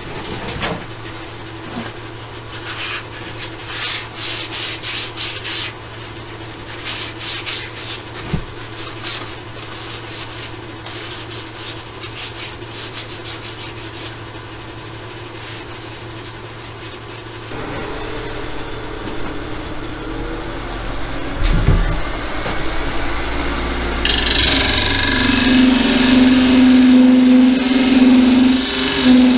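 Wood lathe running with a steady hum, with scattered clicks and scraping. About two thirds in the machine sound changes and grows. Near the end a turning tool cuts into the spinning wood with a loud scraping hiss over the lathe's steady tone.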